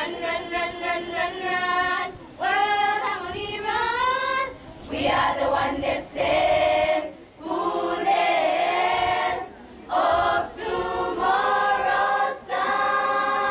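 Choir singing, in phrases of a second or two with short breaths between them.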